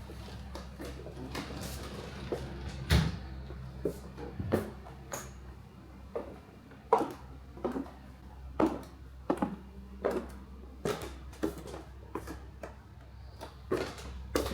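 A series of irregular clicks and knocks, roughly one or two a second, like objects being handled and set down, over a low steady hum.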